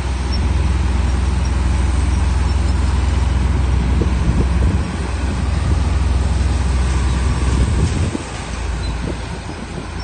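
Heavy diesel engines of a dump truck tipping its load of soil and a bulldozer at work: a steady low rumble that eases about eight seconds in.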